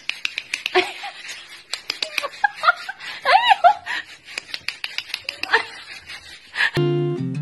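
Giggling laughter over rapid clicks and taps, with two short high arched squeaks about three and a half seconds in. Music starts near the end.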